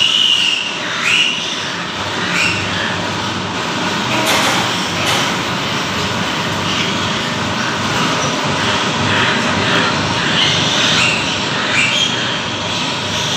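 Steady loud whir of pig-barn ventilation fans, with a few short, high squeaks from piglets near the start and again near the end.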